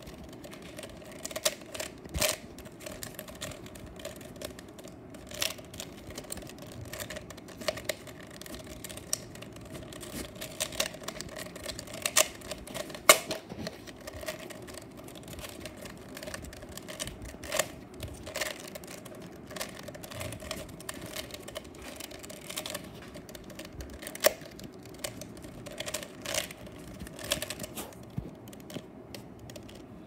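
A plastic 3x3 Rubik's cube being turned by hand: irregular clicking and clacking of the layers as they rotate.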